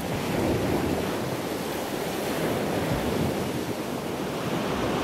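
Ocean surf washing in a steady rush, with wind buffeting the microphone.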